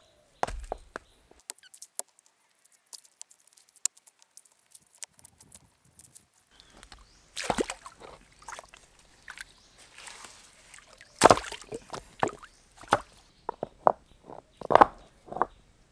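Irregular knocks and clatter of wood being handled, with some sloshing of water. The knocks are sparse and light at first and come louder and closer together in the second half.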